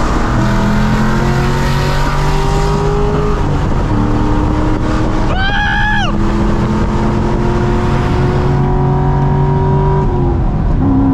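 C6 Corvette Grand Sport's 6.2-litre LS3 V8 with long-tube headers, heard from the cabin while accelerating hard on the highway: the engine pitch climbs through one gear, breaks at a shift about three and a half seconds in, climbs again through the next gear and drops as the throttle comes off near the end. A brief high whine cuts in about five and a half seconds in.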